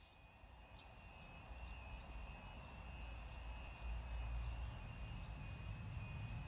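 Level crossing warning alarm sounding a steady, high warbling tone, over the low rumble of an approaching Class 158 diesel multiple unit that grows louder. A few faint bird chirps.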